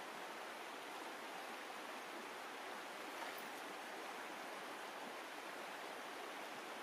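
Shallow stream running over stones: a steady rush of water, with one faint tick about three seconds in.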